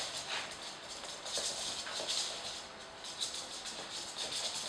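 Flat microfibre mop swishing across a laminate floor, with Jack Russell puppies' claws skittering on the boards as they chase it: a stream of irregular scratchy rustles.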